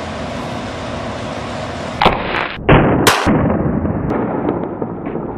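Shotgun blast: loud, sharp bangs about two and three seconds in that die away over steady background noise.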